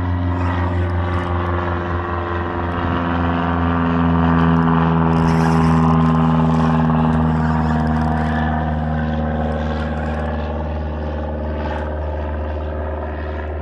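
An engine running steadily with a low, even hum; its pitch shifts slightly higher a couple of seconds in, and it grows a little louder for a few seconds in the middle.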